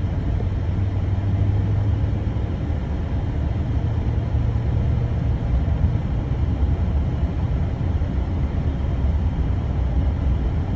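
Steady low rumble of a Silverado 2500HD pickup under way, its 6.6 L Duramax L5P diesel running with road noise.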